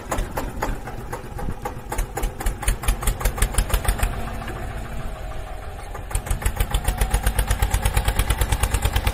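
Tractor engine chugging in quick, even beats, about seven a second. The beats soften for a couple of seconds in the middle, then come back strong.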